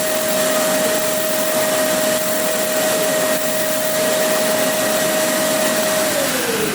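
Fan or blower motor on a laser glass-drilling machine running with a steady whine over a loud airy hiss; near the end the whine starts to fall in pitch as it winds down.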